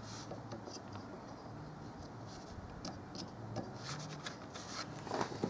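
Faint scratching and light ticks of a soldering iron and small tools working on a circuit board while a component is being desoldered, over a faint low hum.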